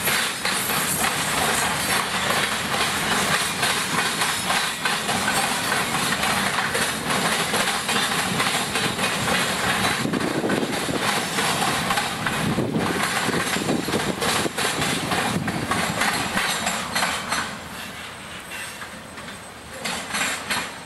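A freight train of tank cars and covered hoppers rolls past with a steady rumble and hiss, and its wheels click over the rail joints. The sound falls away about three-quarters of the way through as the end of the train goes by.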